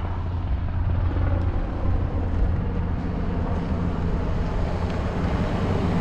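Steady low rumble of wind rushing over the microphone of a camera on a moving bicycle, mixed with road noise, with no sharp sounds.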